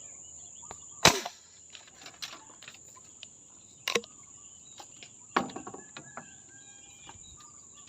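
Air rifle shot: one sharp, loud crack about a second in, followed by two smaller sharp sounds at about four and five and a half seconds. A steady high-pitched insect drone runs underneath.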